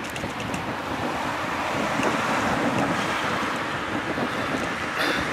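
Wind rushing over the microphone of a bicycle-mounted camera while riding, a steady noisy rush that briefly grows into a louder hiss near the end.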